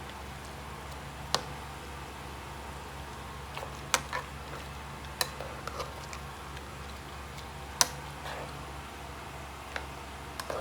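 A pot of vegetable soup cooking: a steady low hum with sharp clicks scattered through it, about five in ten seconds.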